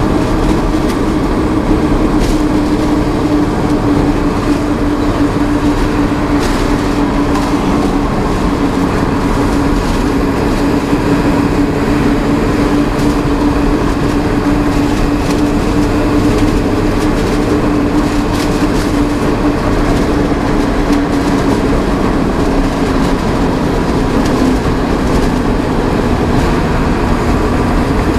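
Truck cab noise at highway cruising speed: a steady engine drone over tyre and wind rumble. The engine note drops slightly near the end.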